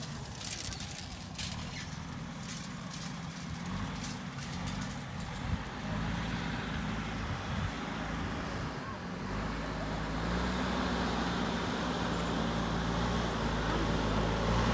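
Diesel engine of a JCB backhoe loader running steadily, with a few light clicks in the first few seconds; it grows louder from about ten seconds in.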